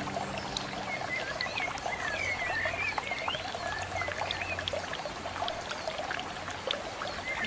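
Water from an aquarium's top-mounted filter pouring and trickling steadily into the tank, with many small splashes and a low steady hum. Birds chirp now and then.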